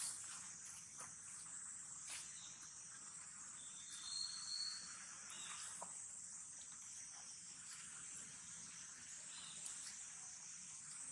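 Steady high-pitched insect chorus, with a short high squeak about four seconds in and a few faint clicks.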